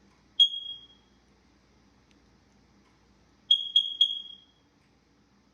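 Smoke detector chirping: one short, high-pitched chirp, then about three seconds later three chirps in quick succession, each ringing out briefly. The triple chirp is the detector's signal that something is wrong with it.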